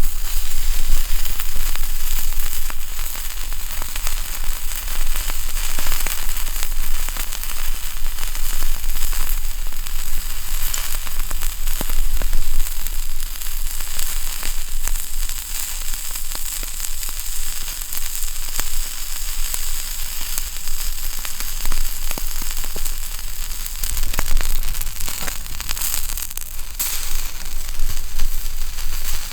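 Wood fire burning close up: a steady hiss with many sharp crackles and pops.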